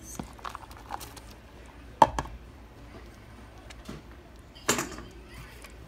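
Kitchen handling sounds as shredded cheese is tipped from a plastic container into a soup pot. There is one sharp knock about two seconds in, with a short ring, and a softer clatter a little before six seconds.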